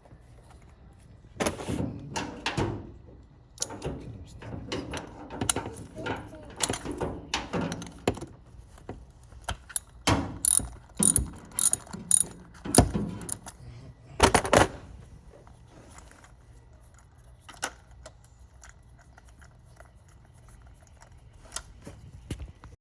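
Ratchet wrench with a spark plug socket turning a spark plug, clicking and rasping in irregular runs of strokes, which thin to scattered clicks about fifteen seconds in.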